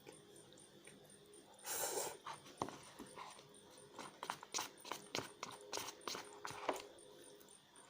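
Close-miked mouth sounds of someone eating stir-fried instant noodles: a short noisy slurp about two seconds in, then a run of quick chewing clicks and smacks that fades out near the end.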